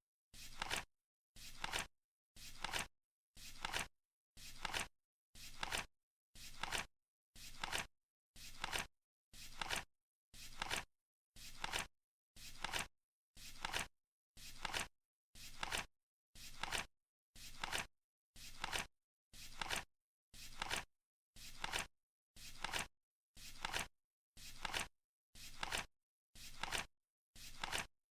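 Flip clock's flaps turning over once a second in a steady countdown, each flip a short papery rustle that builds for about half a second and cuts off sharply, with silence between.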